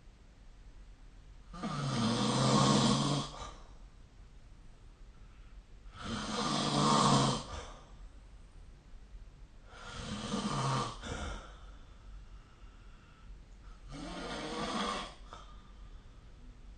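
A person snoring: four snores about four seconds apart, each lasting a second or so, the last two softer than the first two.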